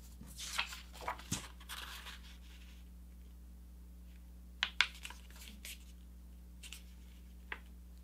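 A sheet of A4 paper being folded in half by hand and the crease pressed flat: rustling and crackling over the first two seconds, then a few short crisp paper sounds near the middle and near the end.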